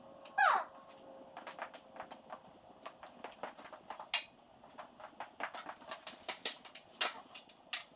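Irregular footsteps, clicks and knocks of a person moving about and climbing a stepladder, growing busier and louder in the last couple of seconds. About half a second in there is one short squeal that falls in pitch.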